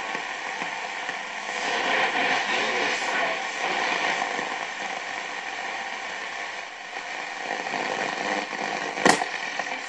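VEF Spidola 230-1 portable radio's loudspeaker giving static and hiss between stations while being tuned, with faint snatches of broadcast in the noise. A sharp click about nine seconds in.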